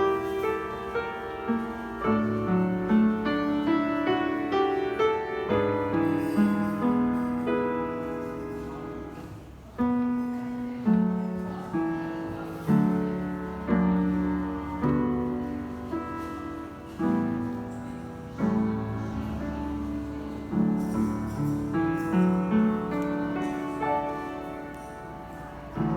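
Background music: solo piano playing a gentle melody with chords, struck notes dying away, a brief quiet swell just before a fresh phrase about ten seconds in.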